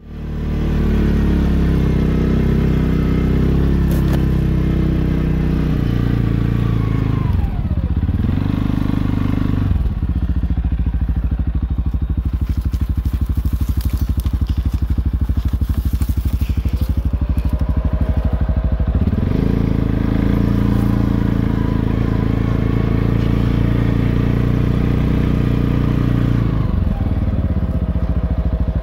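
ATV engine running under load while riding through deep snow, its engine speed dropping and picking up again several times.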